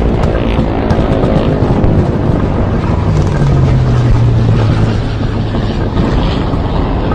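Loud aircraft engine drone, a dense steady rumble whose low pitch drops a little about three seconds in.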